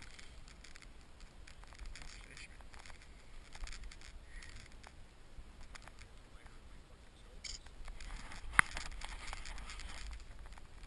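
Low wind rumble on the microphone, with faint rustling and scraping as the angler handles a large smallmouth bass on the snow, and one sharp click about eight and a half seconds in.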